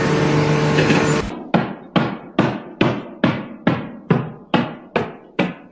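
A steady hum with noise, which gives way about a second and a half in to a run of sharp, evenly spaced knocks, about two and a half a second, each ringing briefly and dying away.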